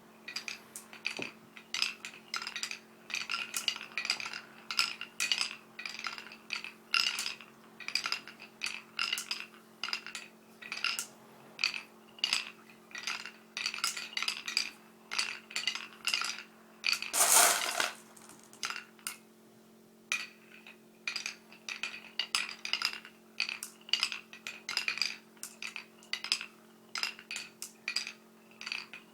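Glass marbles clicking and clinking against each other and the track, many quick strikes each with a brief ring, and a louder clatter lasting about a second partway through. A faint steady hum lies underneath.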